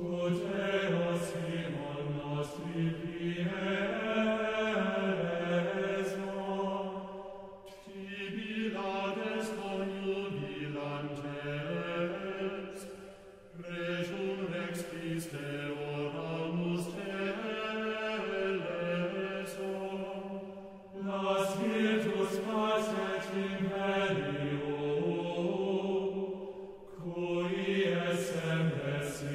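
Chanted vocal music: slow, sustained voices singing a stepwise melodic line in long phrases, with short breaks between the phrases.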